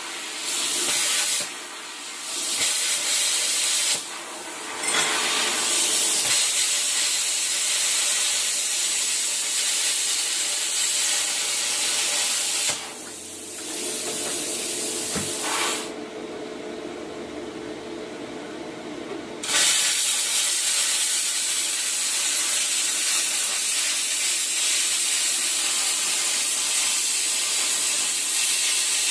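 Cut 50 plasma cutter hissing as it cuts steel. The hiss stops and restarts several times and goes quieter and duller for a few seconds past the middle.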